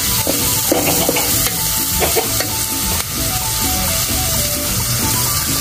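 Diced onion, tomato and sweet pepper sizzling steadily in hot oil in an aluminium pot, the onion just tipped in.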